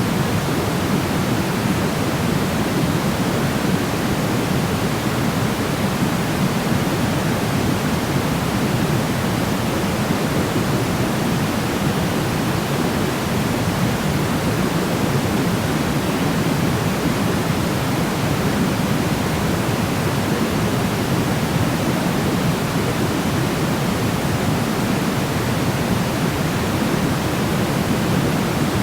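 Steady white noise played for sleep: an even, unchanging hiss with no breaks, fuller in the low end than in the highs.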